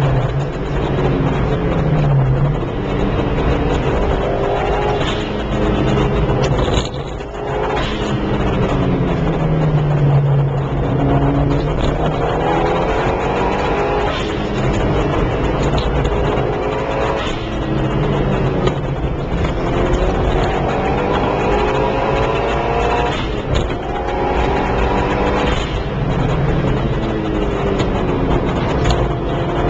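Car engine heard from inside the cabin, driven hard on a race track: it revs up rising in pitch again and again, with short breaks at each gear change and lift, over steady tyre and wind noise.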